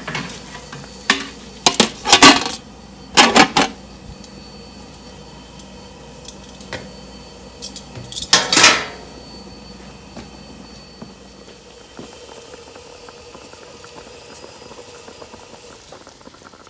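Aluminium stockpot lid clanking against the pot, in a cluster of sharp metal knocks over the first few seconds and one more about eight seconds in, with the boiling pot's steady low bubbling underneath.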